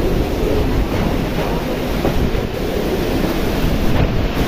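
Strong typhoon wind with rain, a steady rushing noise with gusts buffeting the microphone.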